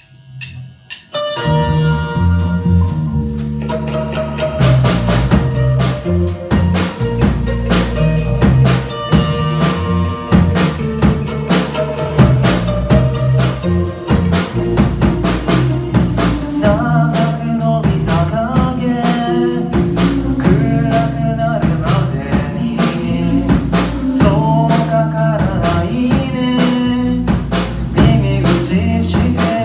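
Live rock band starting a song: after a sparse opening, drum kit, bass and electric guitars come in together about a second in and play on steadily. A male lead vocal comes in about halfway through.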